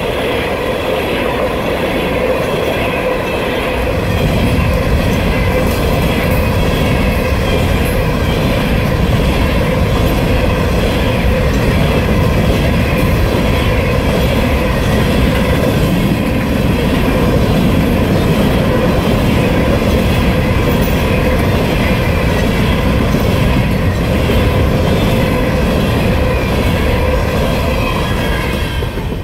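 Empty coal hopper cars of a freight train rolling past: a steady rumble and clatter of steel wheels on the rails, heavier from about four seconds in, with a steady high tone running over it.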